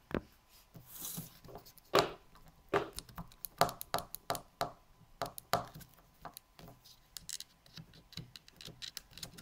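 Handling noise: an irregular run of clicks, knocks and rubbing as objects are moved about by hand, loudest in a sharp knock about two seconds in.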